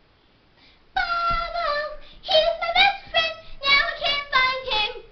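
A girl singing a short wordless-sounding tune in held, sliding notes, starting about a second in.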